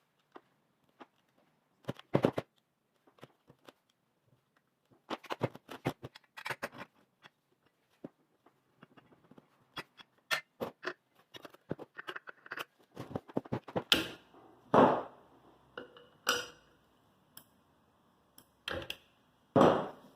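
Scattered clicks and knocks of objects being handled, irregular and growing busier, with a few louder knocks in the second half; no motor running.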